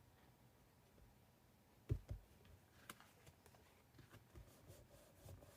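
Near silence with paper-crafting handling noises: two soft thumps about two seconds in, a sharp click about a second later, then faint taps, as cardstock pieces are handled and pressed down on the work table.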